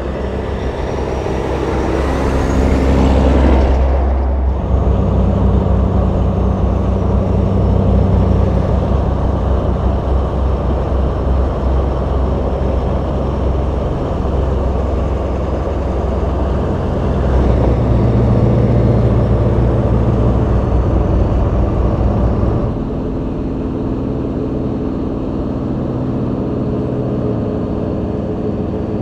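Vintage semi trucks' diesel engines running steadily at highway speed, with tyre and wind noise. The engine note changes abruptly about four seconds in and again near the end, as a different truck is heard.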